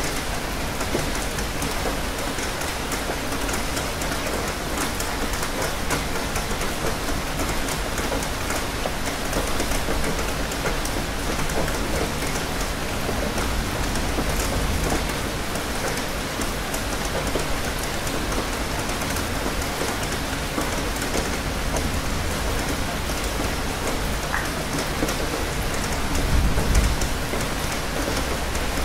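Steady, heavy rain falling, a continuous even hiss with fine pattering drops, with a brief low rumble near the end.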